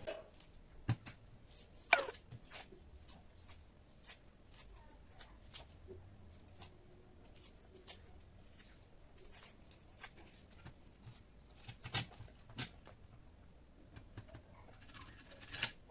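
Faint, irregular clicks and taps of a kitchen knife on a cutting board as onion and ginger are cut. A few sharper knocks stand out, about two seconds in and twice near twelve seconds.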